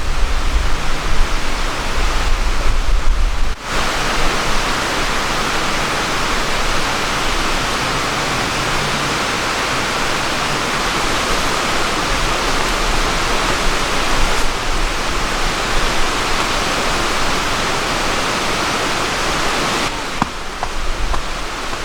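Steady rush of a flowing river. A low rumble under it stops abruptly about three and a half seconds in, leaving an even, bright rush of water.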